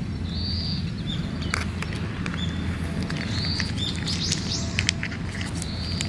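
Birds calling in short high chirps, three times, over a steady low rumble. Scattered sharp clicks from a cat crunching dry kibble close by.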